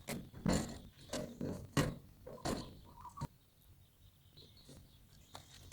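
A series of short knocks or thuds, roughly one every 0.6 seconds, that stop a little over three seconds in and leave only faint scattered sounds.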